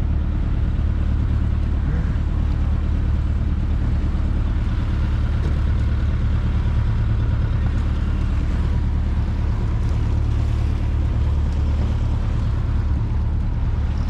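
Tour boat's engine running steadily while under way, a low, even drone.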